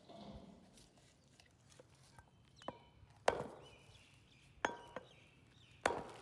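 Steel meat cleaver chopping goat meat on a wooden log chopping block: five sharp chops in the second half, the blade ringing briefly after some strokes.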